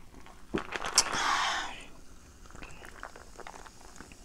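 Plastic soda bottle cap twisted open, releasing a short loud hiss of gas about a second in, then soda pouring with soft clicks and fizz near the end.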